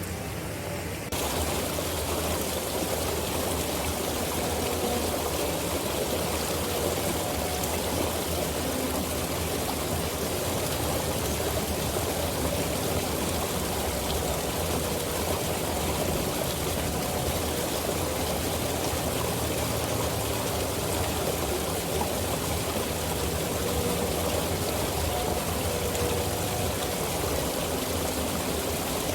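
Flowing river water: a steady, even rush that comes in suddenly about a second in and holds unchanged.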